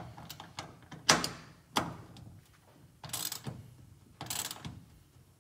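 Hand ratchet wrench tightening a nut a few more turns: short runs of metal clicking, about five strokes spaced roughly a second apart.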